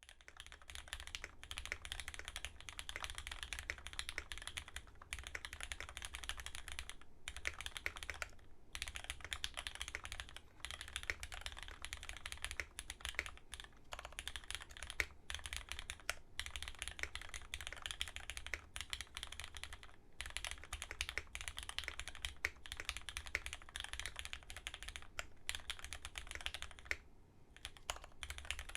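Continuous fast typing on a custom mechanical keyboard with lubed Cherry MX Black linear switches in an aluminium plate, GMK keycaps: a dense stream of key clacks, with a couple of brief pauses, one about seven seconds in and one near the end.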